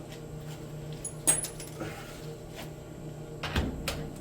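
A few short metallic clinks and clicks, the loudest about a second in and a small cluster near the end, over a steady low hum.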